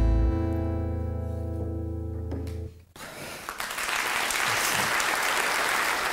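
The song's final chord on acoustic guitar and double bass, held and fading out, then audience applause breaking out about three seconds in.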